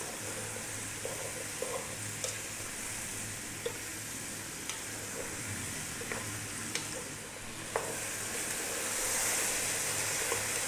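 Chopped leeks, potatoes, onion and celery sizzling in oil in a pot as they are stirred with a wooden spoon, which gives scattered light clicks and scrapes against the pan. A low steady hum sits under the sizzle, which grows a little louder near the end.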